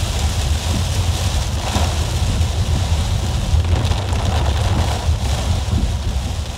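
Heavy rain on a car's roof and windshield over the steady low rumble of the car driving on a flooded road, heard from inside the cabin.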